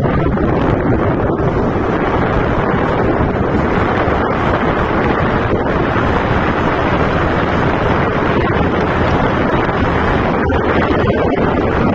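Steady, loud wind rushing over the microphone of a moving bike, with no breaks.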